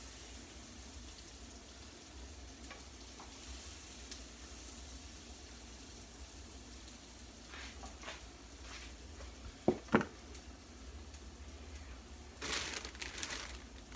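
Pork chops sizzling steadily in a frying skillet. About ten seconds in, a utensil clinks twice sharply, and near the end there is a brief louder rush of sizzling and scraping as a chop is handled in the pan.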